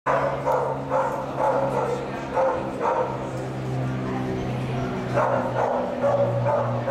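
A dog barking repeatedly in short, quick barks, in two runs with a pause of about two seconds between them, over a steady low hum.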